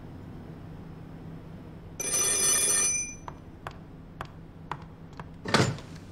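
Vintage black rotary desk telephone's bell ringing once for about a second, an incoming call. A few light knocks follow, then a short clatter near the end as the handset is picked up.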